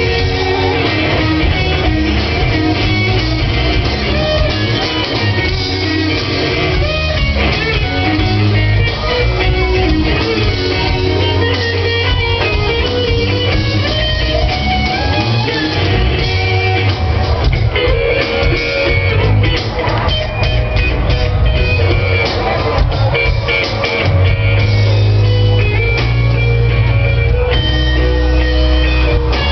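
Live rock band playing, led by guitars over bass and drum kit.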